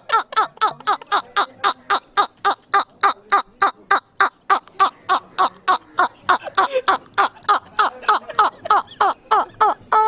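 Hearty male laughter in one long unbroken fit: a rapid run of "ha-ha" pulses, about four or five a second, each falling in pitch.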